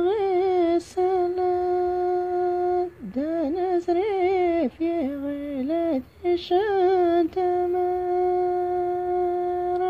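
A woman singing alone, unaccompanied, in a high voice. She sings an ornamented melody of quick wavering turns with two long held notes, one early and one that runs through the last part.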